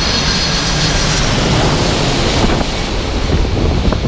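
Jet engine noise of a KLM Boeing 747 passing low overhead on landing approach, a high engine whine fading out about a second in, with heavy wind buffeting the microphone.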